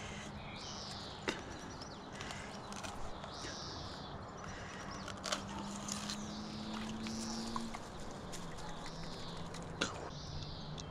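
A bird calling: a short, high, arching chirp repeated about every second and a half, with a few sharp clicks between.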